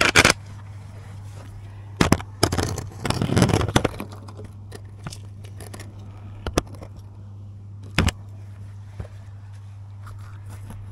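Phone camera scraping and knocking against brick and rubble as it is pushed into a wall cavity, loudest about two to four seconds in, then a few scattered knocks. A steady low hum runs underneath.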